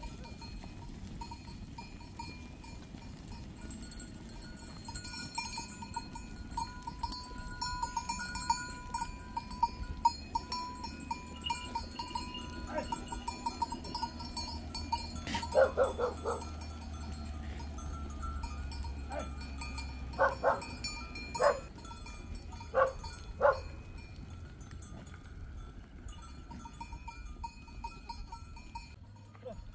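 A herd of goats running past on dry, stony ground: a steady patter and clatter of many hooves, with jingling bells. Several short goat bleats come in the second half.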